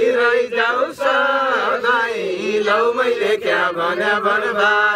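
Several voices chant-singing a Far-Western Nepali dhusko folk song of the rice-planting season. They hold long, wavering sung lines of a repeated verse.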